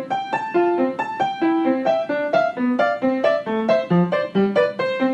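Background music: a quick piano tune, a melody of short notes, about four or five a second, over a lower bass line.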